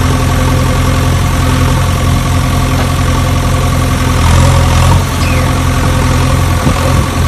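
Engine idling steadily: a loud, even low drone that holds one pitch throughout.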